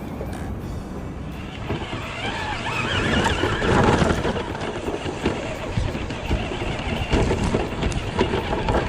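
Tamiya Lunchbox electric RC truck driving over rough ground, with rattles and knocks from the chassis and wind on the microphone. It gets loudest about three to four seconds in.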